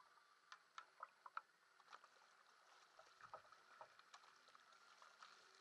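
Faint, irregular splashes and drips as a sprint kayak's paddle blades dip into and lift out of calm water, with a few small sharp ticks.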